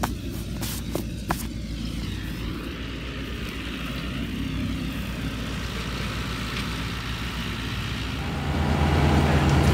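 John Deere tractor's diesel engine running steadily, with a few sharp handling clicks in the first second and a half. Music fades in near the end.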